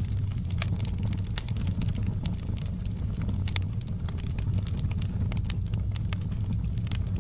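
Wood fire burning with a steady low roar and frequent, irregular sharp crackles and pops.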